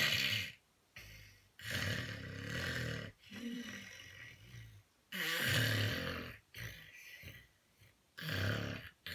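A woman snoring in her sleep: a string of rough snores, each a second or so long, with short pauses between them.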